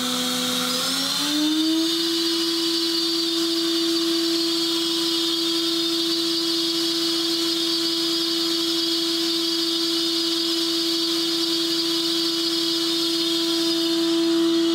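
Makino S56 vertical machining center's 20,000 rpm spindle whining during its warm-up run. The pitch steps up to a higher speed about a second in, holds steady, and drops off right at the end.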